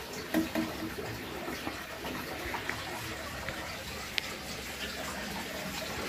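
Steady rushing background noise, with a brief faint voice just after the start and a single sharp click about four seconds in.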